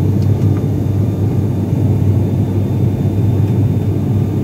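ATR 42-600 turboprop engines and propellers heard inside the cabin in flight: a loud, steady low drone.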